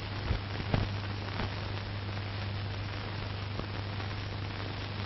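Steady hiss and low hum of the soundtrack's background noise, with a few faint clicks and no narration.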